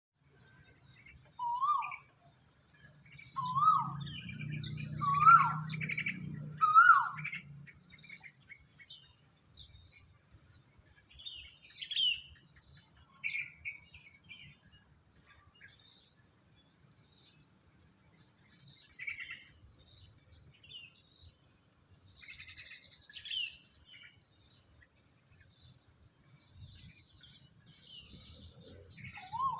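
A bird calling from a tree: four loud, short rising calls about every second and a half in the first seven seconds, then scattered fainter chirps and whistles. A steady high, thin hiss-like tone runs under it.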